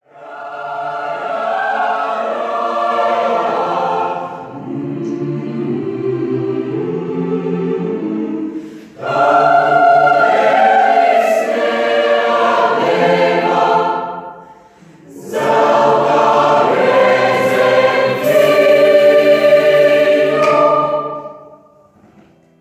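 Mixed youth choir singing in three phrases, with short breaks about nine and fifteen seconds in, dying away near the end.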